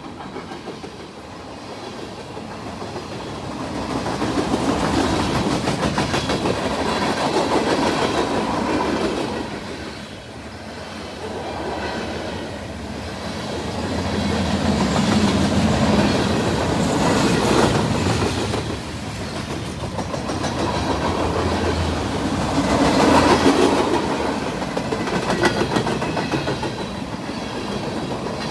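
Train passing close by, its wheels clicking in a fast, dense run over the rail joints, the loudness swelling and easing as the cars go by.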